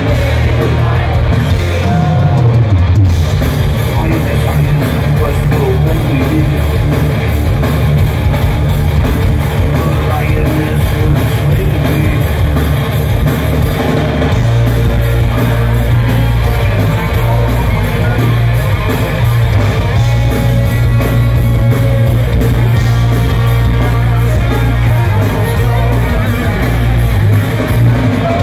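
Heavy metal band playing live through a PA: distorted electric guitars, electric bass and drum kit, loud and continuous. A low note slides down about two seconds in.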